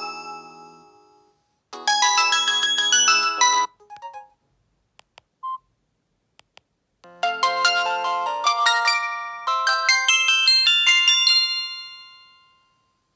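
Samsung GT-E1080W mobile phone playing ringtone melodies of chiming notes through its speaker, one after another: a tune dying away at the start, a short tune about two seconds in, a few faint short beeps, then a longer tune from about seven seconds that fades out.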